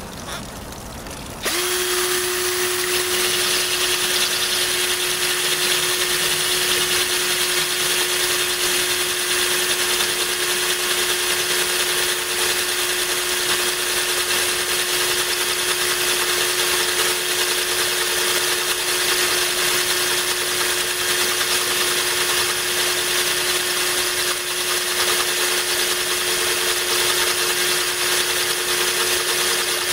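Power drill starts about a second and a half in and runs at a steady speed, its tubular hole bit grinding into a glass bottle under a stream of cooling water.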